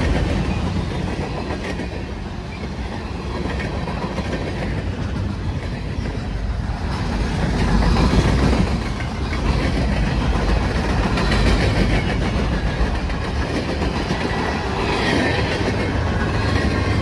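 Train rolling past close by: a steady rumble of steel wheels on rail from the passing cars, with a brief high squeal near the end.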